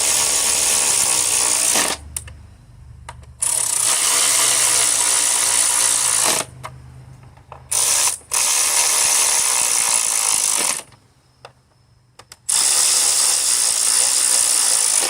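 A handheld power tool's motor runs the 10 mm ignition-coil hold-down bolts down, in four long bursts of two to three seconds each with quiet gaps between. Each burst starts and stops abruptly, and the third one stutters briefly near its start.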